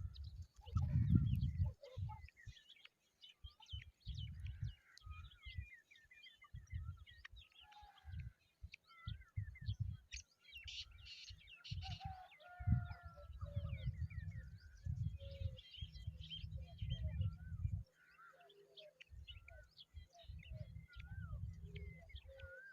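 Several birds chirping and calling, many short rising and falling notes overlapping, with repeated low rumbles underneath.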